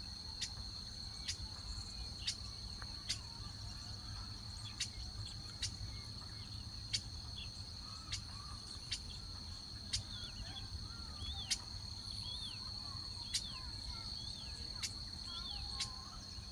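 Insects trilling steadily at a high pitch, with a sharp tick about once a second. Small birds give short chirps throughout, more of them in the second half.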